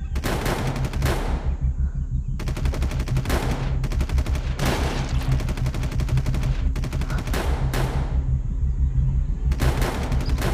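Repeated long bursts of rapid automatic gunfire with brief pauses between them, over a steady low rumble.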